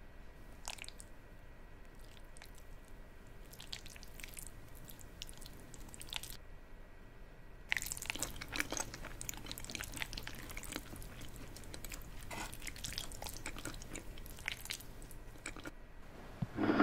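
Small wet squishing and tearing sounds as a soft red fruit is pulled apart by hand, then, from about eight seconds in, close-up wet chewing and biting with a light crunch. A louder thump comes right at the end.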